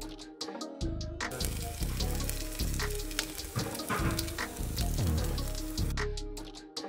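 Spinach pancakes frying in oil in a pan, a steady sizzle that cuts in about a second in and stops near the end, with background music throughout.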